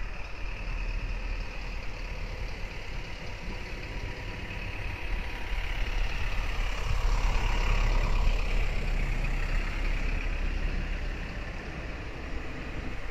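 A road vehicle passes, its noise swelling to a peak about eight seconds in and then fading, over a steady low rumble.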